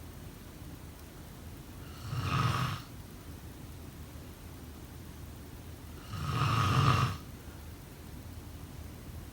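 A person snoring: two snores about four seconds apart, each lasting about a second.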